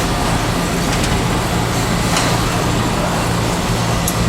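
A steady mechanical drone: an even rushing noise with a constant low hum, with a couple of faint clicks.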